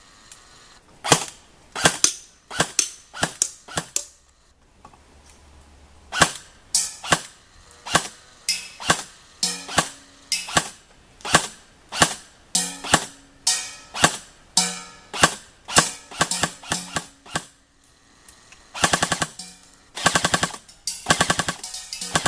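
A&K SR25 airsoft electric rifle firing: single semi-automatic shots, about one or two a second with a short pause, then rapid full-auto bursts near the end.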